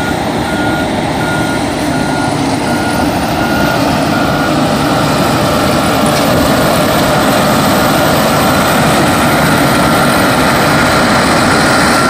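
Caterpillar crawler bulldozer's diesel engine running under load as it pushes sand through dredge slurry, over a steady rush of slurry water. A reversing alarm beeps about one and a half times a second and fades into the noise in the second half.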